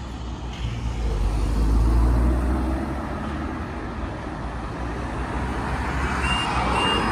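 Road traffic crossing a level crossing, with a heavy vehicle's low rumble loudest about one to three seconds in. Near the end the crossing's warning alarm starts, a short high tone repeating about twice a second, as the amber road light comes on to signal that the barriers are about to lower for a train.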